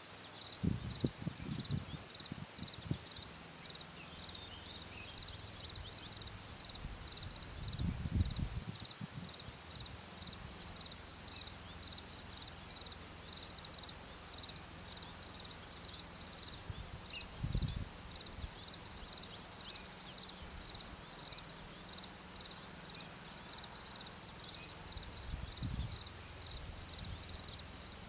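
A steady chorus of insects chirping in a fast, even, high-pitched pulse. A few short low rumbles come and go underneath.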